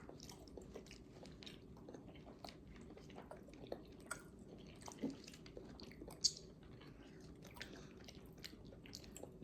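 A person chewing food close to the microphone, a run of small wet clicks and crunches, with one sharper click about six seconds in.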